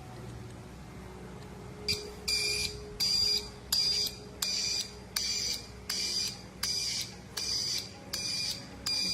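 An electronic beeper or buzzer sounding a repeated high beep, about ten beeps at a little more than one a second, starting about two seconds in over a low steady hum.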